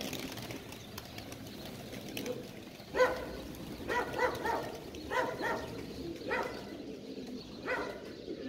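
Domestic pigeons cooing: a run of short calls that starts about three seconds in and repeats every second or so.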